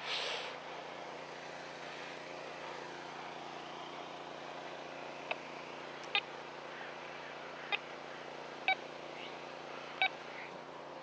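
Quest Q20 metal detector giving five short beeps, about a second apart, as the coil is swept over the sand. A steady mechanical hum runs underneath, and a short rustle comes at the start.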